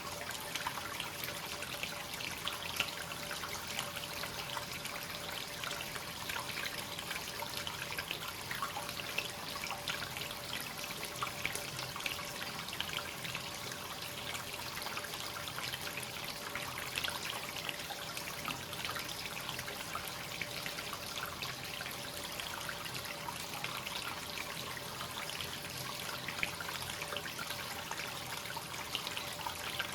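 Hot-spring water flowing continuously into a bath, a steady splashing trickle.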